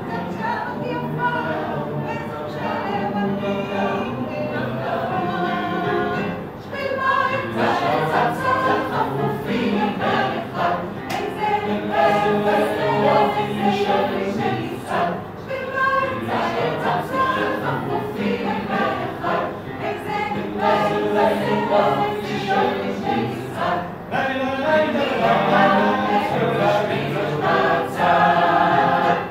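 Mixed choir of men's and women's voices singing a song in parts, with a short pause for breath about six seconds in.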